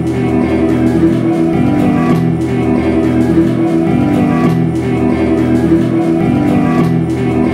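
Blues band playing, with guitar to the fore over a steady beat.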